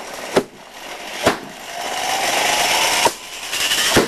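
Homebuilt turbocharger-based backyard jet engine starting: sharp bangs about once a second over a rushing noise, with a whine rising for about a second midway as the turbine spools up. The start is noisy and rough, with flame and smoke at the exhaust.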